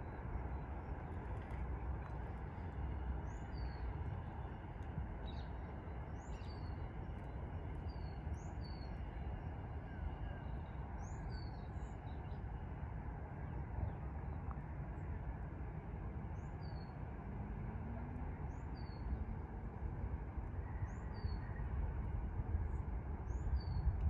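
A small songbird repeats a short two-note call, a higher note then a lower one, every second or two. Under it runs a steady low rumble of distant traffic.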